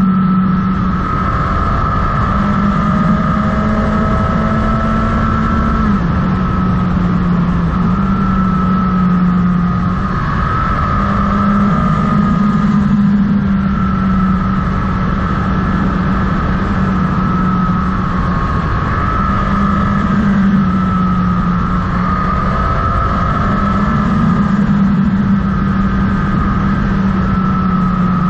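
Motorcycle engine running while riding at a steady pace, its pitch stepping up and down slightly a few times with the throttle, over a continuous rush of wind and road noise.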